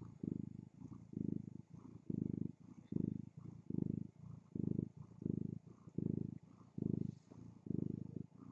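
Domestic mother cat purring contentedly while her kittens nurse: a low, buzzy purr that pulses in and out with each breath, about three pulses every two seconds.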